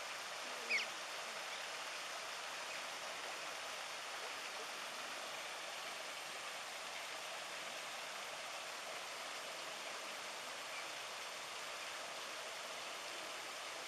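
Steady rush of water from a small rocky waterfall and stream. A brief, high squeak cuts through it about a second in.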